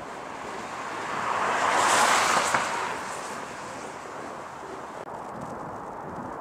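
A car passing close by on the bridge roadway, its tyre noise swelling and fading over about two seconds, loudest about two seconds in.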